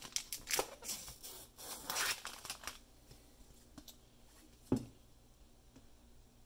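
Protective plastic film being peeled off an acrylic panel by hand, crackling and crinkling for the first few seconds, then quieter. A single sharp knock about four and a half seconds in, with a few light ticks as the panel is handled.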